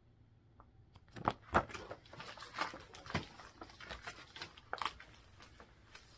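Paper cross-stitch charts in clear plastic sleeves being handled and shuffled through, crackling and rustling in quick irregular bursts that start about a second in.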